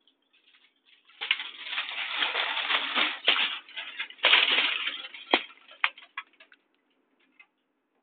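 Handheld RF (microwave) meter's speaker crackling and clicking as it picks up pulsed radio signals: dense crackle from about a second in to about five seconds, then thinning to scattered clicks.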